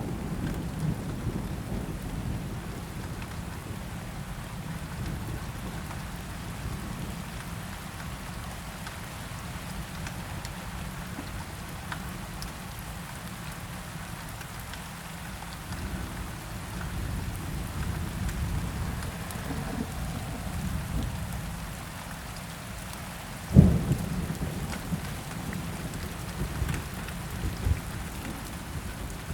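Steady rain falling through a thunderstorm, with low rolling thunder rumbling throughout. About three-quarters of the way in a sharp, loud thunderclap breaks out, followed by more rumbling.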